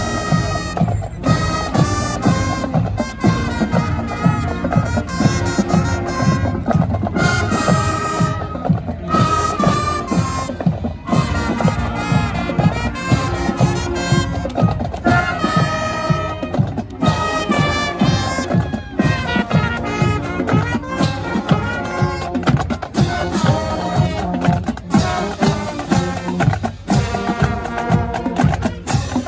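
High school marching band playing as it passes: brass and woodwinds carry a melody over a steady beat of drums.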